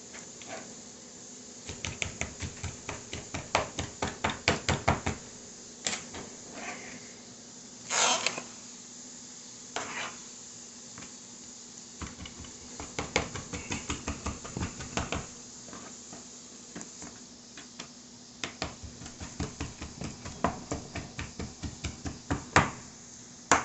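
Large kitchen knife chopping shrimp on a cutting board, mincing it in runs of quick knocks about four or five a second with short pauses between them. A brief scrape about eight seconds in.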